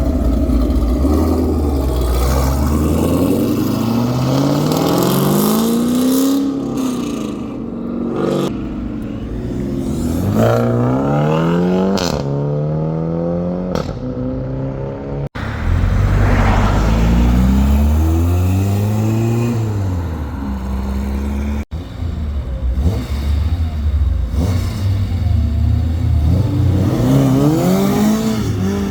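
Several cars accelerating away one after another, their exhaust notes repeatedly rising in pitch and dropping back through revs and gear changes.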